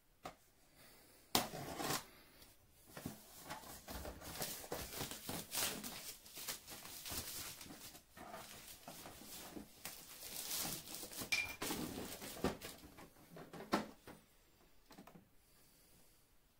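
Clear protective plastic film being peeled off a new HP printer and crumpled, an irregular crinkling rustle with a sharp snap about a second in and another near the end.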